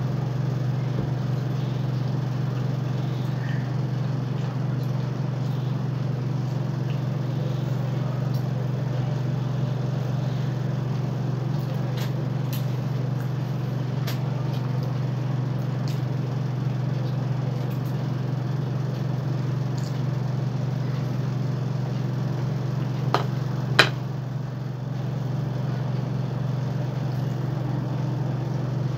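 A steady low hum, with a few faint clicks and taps over it; the loudest is a sharp click near the end.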